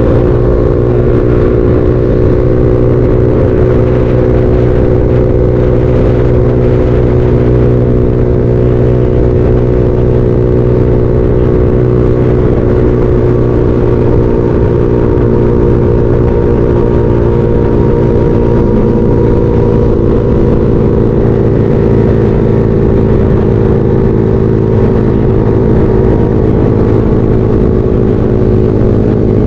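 Motorcycle engine running at a steady, even speed while riding, its pitch holding nearly constant, over a continuous rush of road noise.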